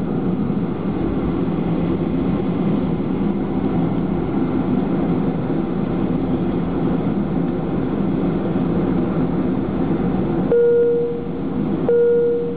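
Steady cabin noise of a Boeing 737-500 taxiing, its CFM56-3 engines running at low power, heard from inside the cabin. Near the end, two short single-pitch tones sound about a second and a half apart.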